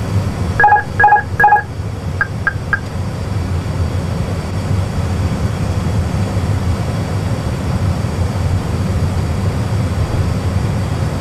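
Airbus A320 autopilot-disconnect aural warning: three loud repeated beeps less than a second in, followed by three short high pips. Under them runs the steady low rumble of the cockpit's engine and airflow noise.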